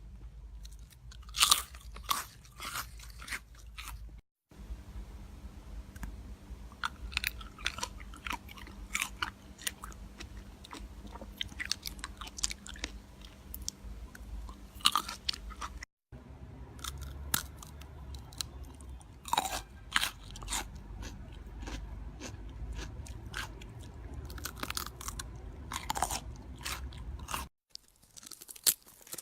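Close-miked chewing of crunchy food: irregular sharp crunches and bites, broken by three brief silent gaps.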